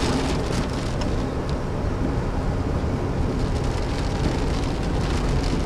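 Steady road noise inside a moving car on a rain-soaked highway: tyres on wet pavement and the engine running, with a few faint ticks.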